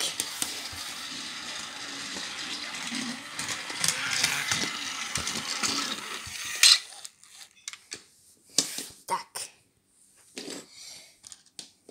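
Model train's small electric motor running along the track with a steady whirr and many small clicks, ending with a sharp click about seven seconds in. A few scattered clicks and knocks follow.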